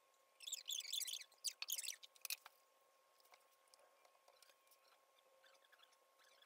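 Rustling and light scraping as hands handle plastic containers and gloves at a work table, a busy stretch of about two seconds with a few sharp ticks, then only faint small clicks.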